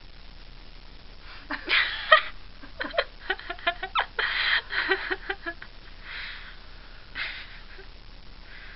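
Guinea pig making a quick series of short squeaks and chuts, mixed with hissy scuffling bursts. After a few seconds it thins out to a couple of fainter rustles.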